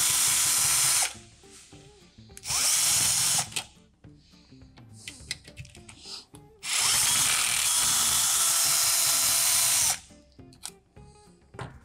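Cordless drill-driver with a Phillips bit running in three bursts as it unscrews the handle screws of a stainless-steel food-processor bowl. A run ends about a second in, a short one comes about two and a half seconds in, and a longer one of about three seconds starts near seven seconds in, each new run opening with a rising whine as the motor spins up.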